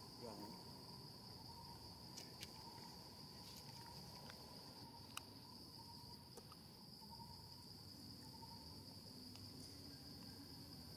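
Faint, steady high-pitched insect chirring, with a few faint clicks.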